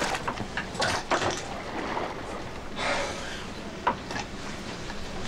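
A ladle knocking against a bucket of chum and chum splashing into the sea, with a few sharp knocks and a short splash about three seconds in, over the low steady drone of a boat engine running slow ahead.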